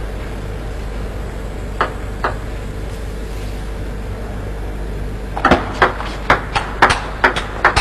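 Table tennis ball clicking. There are two light clicks about two seconds in. A rally starts about five and a half seconds in, with the ball striking the bats and the table in a quick, regular back-and-forth of sharp clicks, two to three a second, over a steady arena hum.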